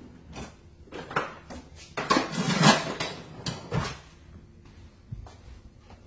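Kitchen utensils clinking and scraping against a pot and dishes as soup is served, with a louder clatter lasting about a second from about two seconds in.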